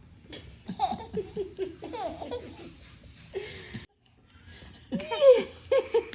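A baby laughing in quick runs of short, pitched laughs, with a brief break about four seconds in before a second run of laughter.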